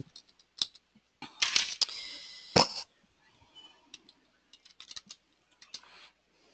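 Computer keyboard typing: scattered key clicks as a password is entered. A louder noisy burst ending in a sharp click comes about a second and a half in.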